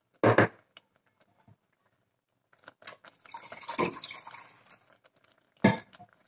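Steel kitchen utensils knocking against a stainless-steel pressure cooker: a sharp knock just after the start and another near the end, with a few seconds of light clattering and scraping between them.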